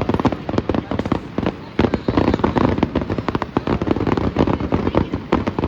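Aerial fireworks going off: a dense, rapid run of many pops and bangs, close together.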